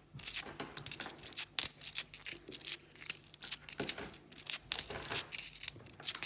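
UK 50p coins clicking and scraping against one another as a thumb slides them off a stack held in the palm, one at a time: a fast, irregular run of small metallic clicks.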